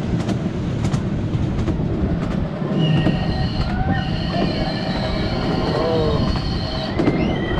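Miniature ride-on railway train running along its track: a steady rumble of the wheels, with high wheel squeal from about three seconds in and gliding squeals near the end.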